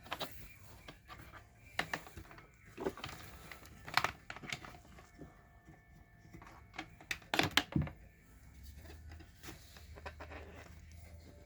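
Plastic parts of a Dirt Devil Quick Power vacuum being handled while its dust container is fitted back in: scattered light clicks and knocks, with a short cluster of knocks about two-thirds of the way through.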